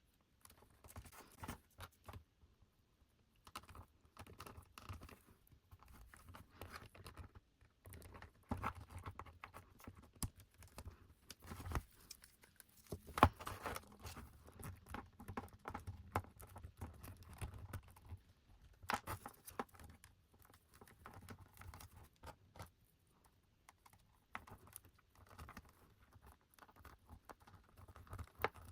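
Faint handling of doll packaging: scattered small clicks, taps and short rustles of plastic and cardboard being opened and unwrapped, with a sharper click about halfway through.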